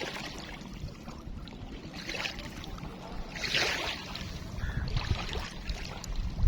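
Kocha River water lapping and washing in small waves, a swish every second or so, with a low rumble rising toward the end.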